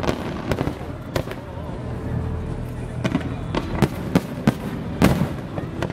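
Aerial fireworks bursting: about eight sharp bangs at irregular intervals over a steady low rumble, the loudest about five seconds in.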